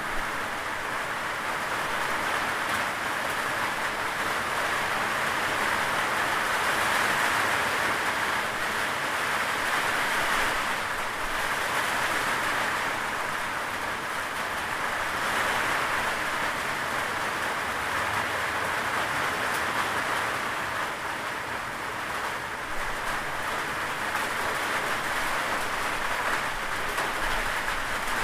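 Steady rain, an even hiss of many drops that swells and eases gently in loudness.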